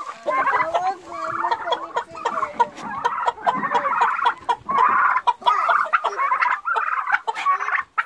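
A poultry house full of domestic chickens and young white turkeys calling over one another: busy, overlapping clucks and chirping calls, dotted with short clicks, while the birds are given fresh-cut grass.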